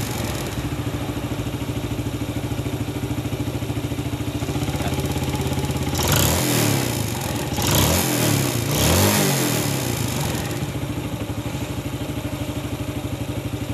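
Yamaha Vega ZR's single-cylinder four-stroke engine idling steadily, with the throttle blipped three times about halfway through. It runs without piston slap ("ngeplek") now that the worn piston has been replaced with a 0.75 mm oversize one.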